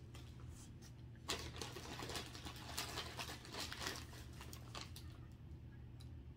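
Plastic shipping bag and packaging crinkling and rustling as hands dig through them, starting about a second in and dying down near the end, over a low steady hum.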